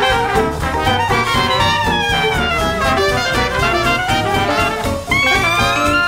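Jazz-style background music with brass instruments. The melody slides down in pitch partway through and breaks off briefly about five seconds in before new held notes begin.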